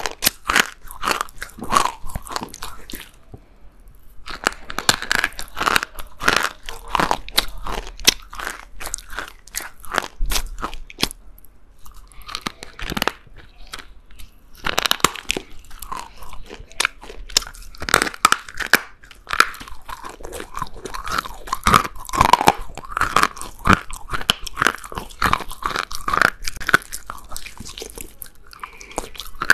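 Close-up crunching and chewing of pieces of china clay, dense irregular crunches with a couple of short pauses.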